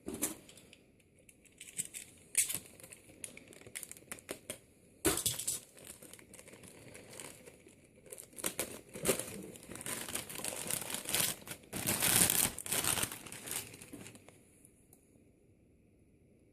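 Packaging being handled and crinkled during an unboxing, with irregular crackles, rustles and small clicks. It is busiest about twelve seconds in and goes quiet near the end.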